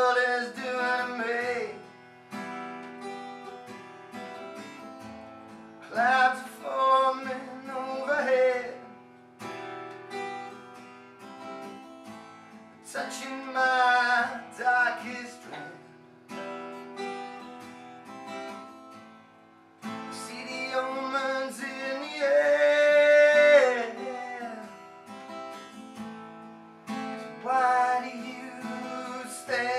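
A man singing a slow acoustic song, accompanying himself on a strummed acoustic guitar. The voice comes in phrases a few seconds long with guitar between them, and the loudest is a long held note about two-thirds of the way through.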